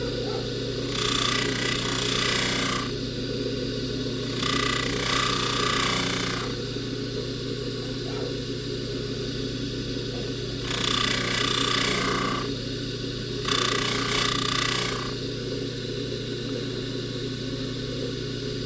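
Jewelry polishing buffer motor running with a steady hum, and four hissing stretches of a second or two each as the gold chain is pressed against the spinning buffing wheel.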